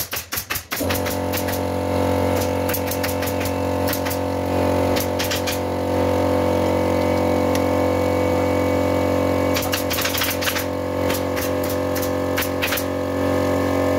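An air compressor motor starts about a second in and then runs steadily, a loud even hum. Over it a pneumatic staple gun fires in quick runs of sharp clicks, stapling upholstery fabric to a wooden sofa frame.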